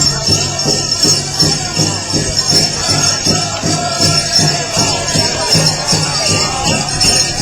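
Powwow drum group playing a steady, even beat of about three strokes a second on a large drum, with high singing and the jingling of dancers' bells.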